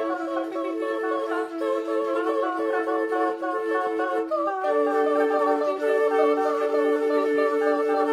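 Two flutes and two voices, soprano and countertenor, holding long sustained notes together as a chord. A little past halfway the chord shifts to a new set of pitches.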